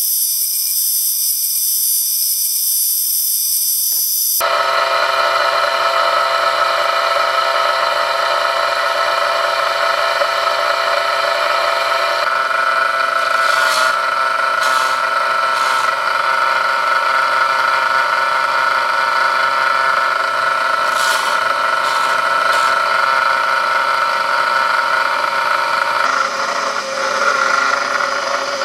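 Restored chainsaw-chain grinder running, its abrasive wheel grinding the chain's cutters. A thin, high-pitched whine gives way abruptly about four seconds in to a fuller, steady motor hum, with a few short rasping passes of the wheel on the cutters.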